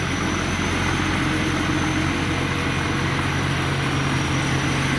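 Rice combine harvester running steadily under load while harvesting, with a constant engine hum and a thin high whine over it.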